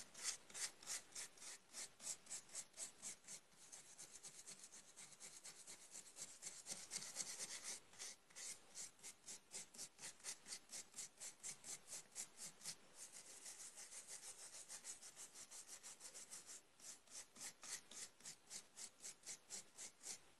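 A stiff brush scrubbing carving dust out of a freshly CNC-carved wooden relief plaque, in faint, even back-and-forth strokes about three a second.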